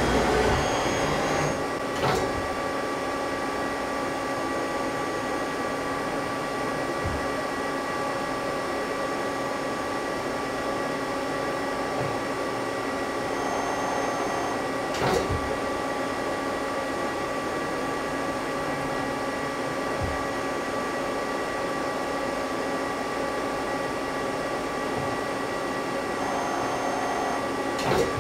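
Mazak CNC lathe running a tapping cycle with its live milling spindle and a floating tap holder: a steady hum made of several constant pitches, broken by a few short clunks, one about halfway through and one near the end.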